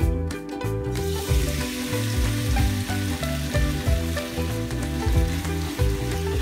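Sliced pork belly sizzling in hot oil in a nonstick wok, the hiss starting about a second in as the meat hits the pan, and stirred with a spatula near the end. Background music plays throughout.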